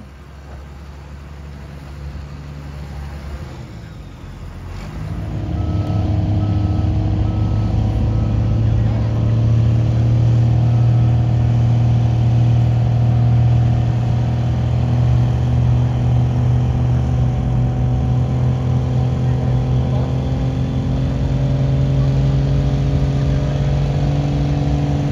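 Modified diesel pickup's engine running at a steady held rpm while staged on the pulling sled before its pull. It gets much louder about five seconds in, then holds with its pitch slowly creeping upward.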